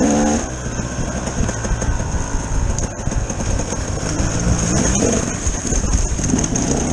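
Enduro motorcycle engine running at part throttle on a rough dirt trail, heard from the bike itself, with constant rattling and knocking as the bike jolts over the ground. The engine note rises briefly at the start and again near the end.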